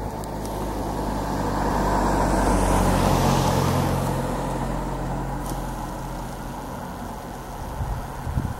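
A motor vehicle passing by on the road. Its engine and tyre noise grow to a peak about three seconds in, then fade slowly.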